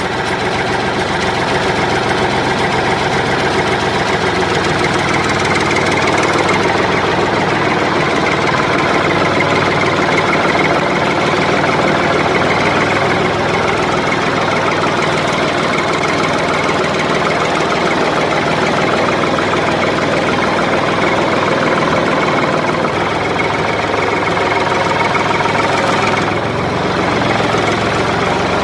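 A tractor engine running steadily at idle, with an even knocking beat, laid over the picture as a sound effect.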